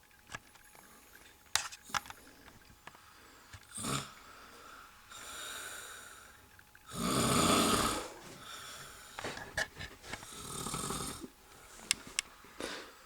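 A man snoring in his sleep after a night of drinking: irregular snoring breaths, with one loud snore about seven seconds in and softer ones around it. A few short, sharp clicks come in between.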